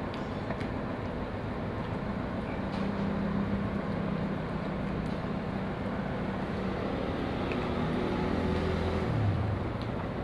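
An engine running steadily over a noisy background, its hum shifting in pitch and swelling briefly near the end.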